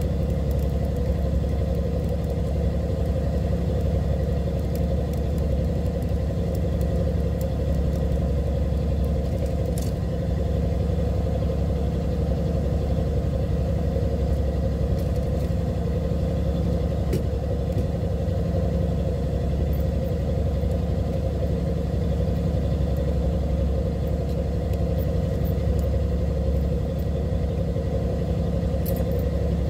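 Fishing boat's engine running steadily: a constant low hum that holds the same pitch and level throughout, with a faint click or two.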